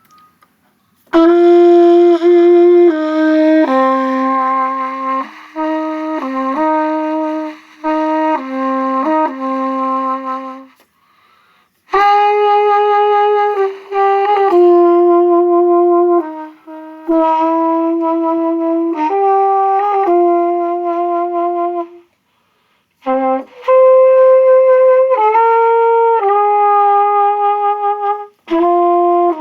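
Solo trumpet played unaccompanied: a slow melody of sustained single notes in phrases, with short breaks for breath about eleven seconds in, around twenty-two seconds and near the end.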